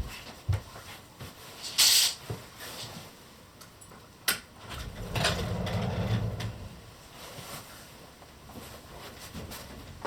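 Household handling noises: scattered knocks and clicks, a brief loud rustle about two seconds in, a sharp click a little past four seconds, and a low rumble for a second or so around the middle.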